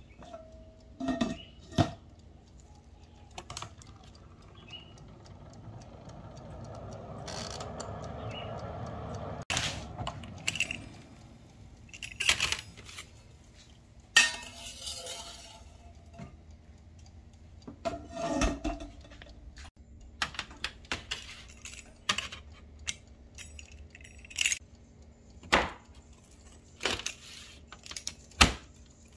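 Metal kitchen utensils clinking and knocking against a glass convection-oven bowl, its wire rack and a stainless steel counter: a string of separate sharp clinks and knocks, with a swelling rush of noise near the middle.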